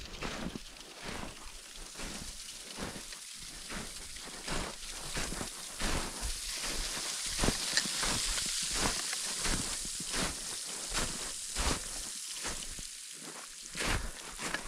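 Footsteps crunching in snow and ice, a quick irregular series of crackly steps, with a steady hiss swelling through the middle.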